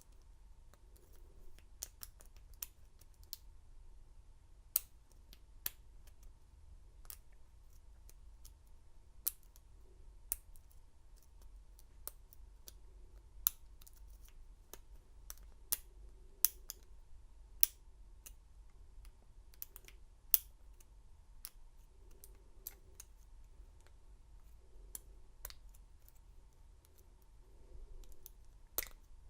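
Lock pick and tension wrench working the pins of a Master Lock No. 230 padlock's five-pin cylinder: faint, irregular metallic clicks and ticks as the pins are probed and set, a handful of them sharper and louder.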